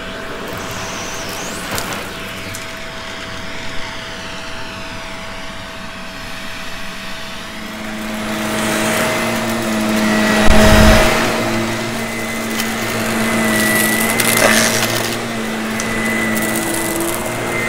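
Vacuum cleaner running with a steady motor whine. About eight seconds in it grows louder and noisier, with a single loud thump a couple of seconds later.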